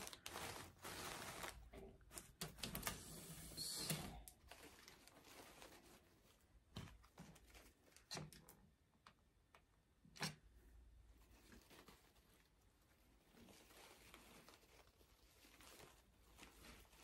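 Faint rustling and light clicks of artificial tulips being handled and pushed into a wreath: busier rustling in the first few seconds, then a few scattered soft taps.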